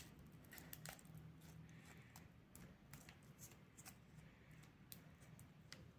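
Faint, scattered snips and clicks of scissors cutting through a wrapped lollipop, otherwise near silence.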